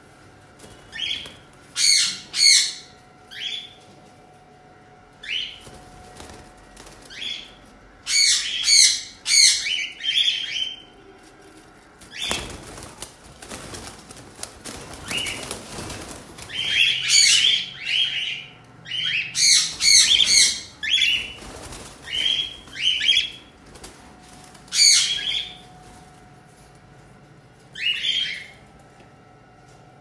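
Cockatiels calling in clusters of short, shrill, screeching whistles, some overlapping. Near the middle there are a few seconds of rustling from wings flapping in the cage.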